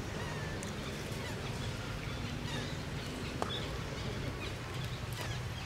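Outdoor ambience: a steady low rumble with faint, high, thin chirps and squeaks scattered through it, and a single short click about three and a half seconds in.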